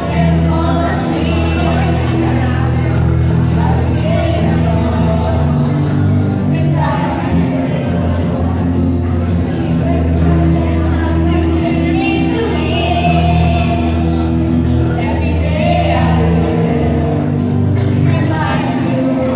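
A group of children singing a song together, accompanied by a strummed acoustic guitar.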